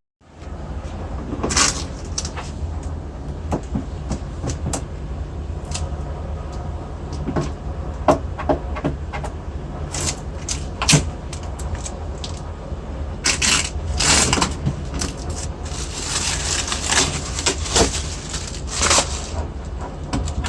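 Handling noises from unpacking a dehumidifier: scattered scrapes, rustles and knocks of packaging and plastic housing, busiest in the last third, over a steady low hum.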